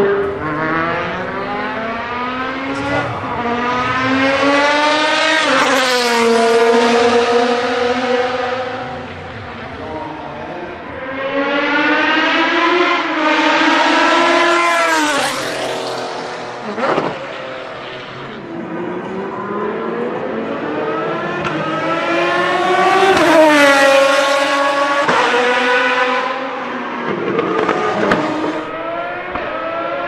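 Ferrari 550 GT1 race car's V12 at full throttle in three long accelerating runs, the pitch climbing through the gears and dropping at each upshift. A couple of sharp cracks fall between the runs.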